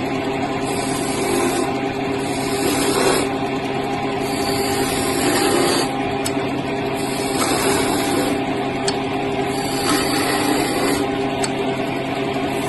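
Wood lathe running with a steady motor hum while a turning chisel cuts into the spinning wooden spindle, its scraping and cutting noise swelling and easing several times.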